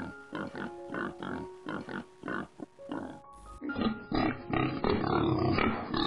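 Pigs grunting in short, repeated grunts, about three a second, over background music with held notes. The grunting gets louder and denser in the second half.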